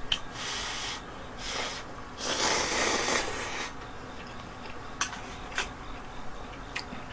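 A person slurping instant noodles off a plate with chopsticks in three long hissing pulls, the longest about two seconds in. A few light clicks follow in the second half.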